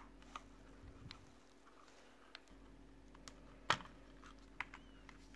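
Scattered small plastic clicks of a computer mouse's shell being worked apart by hand, its top cover being unhooked from the base; the loudest click comes about three and a half seconds in.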